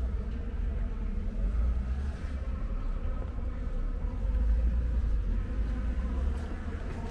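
Street traffic: a steady buzzing drone over a deep rumble that swells and fades.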